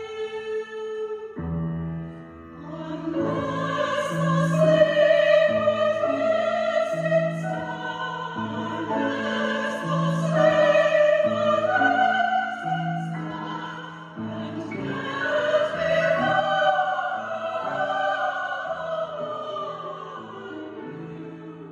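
Operatic-style singing with classical accompaniment: long held, wavering vocal notes over sustained bass notes that move in steps, in phrases with brief dips between them.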